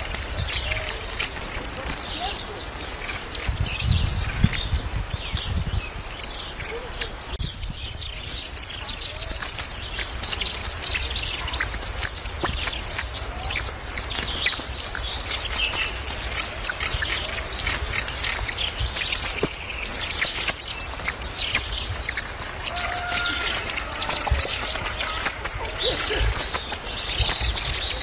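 Red-necked tanager (saíra-militar) singing: a continuous run of thin, very high-pitched notes repeated in quick succession.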